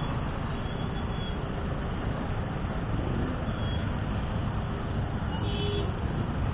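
Keeway CR152 motorcycle's single-cylinder engine running in traffic under a steady wind rumble on the helmet microphone, with a short horn toot about five and a half seconds in.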